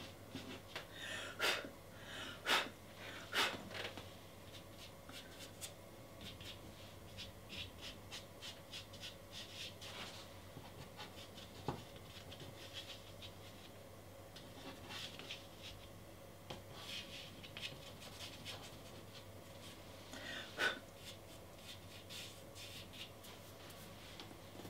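Soft pastel stick scratching faintly on pastel mat paper in many quick short strokes as small squiggled marks are dabbed in, with a few louder scrapes in the first few seconds and again about twenty seconds in.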